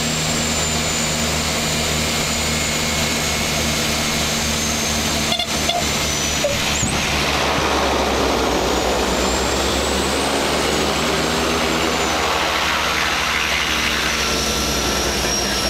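De Havilland Canada Twin Otter's twin PT6A turboprop engines and propellers running steadily, heard from inside the cockpit. A few short clicks come a little over five seconds in.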